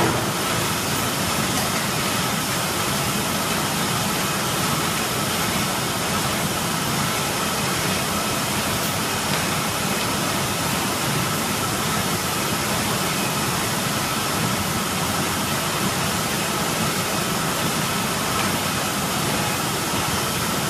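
Paper bag tube forming machine running at a steady pace: a continuous even mechanical noise with a thin steady whine through it.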